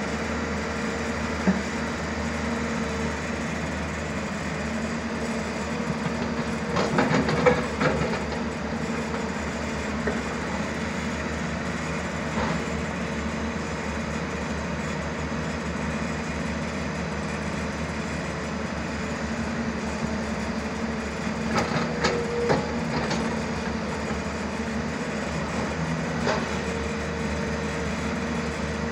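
Hyundai 215L Smart Plus crawler excavator's diesel engine running steadily with a constant hum. Two short bursts of clattering knocks stand out, about a quarter of the way in and again about three quarters through.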